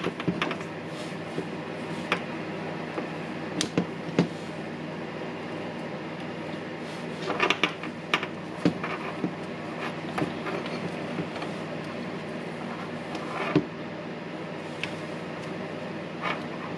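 Scattered light clicks and short scrapes of small parts being handled: the red wire being fitted to the terminal of a replacement power-tool switch, over a steady background hum.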